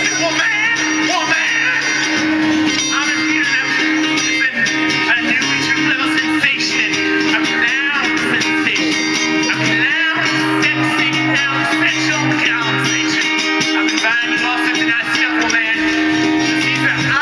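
Live band music: an amplified guitar strummed steadily under a singer's voice.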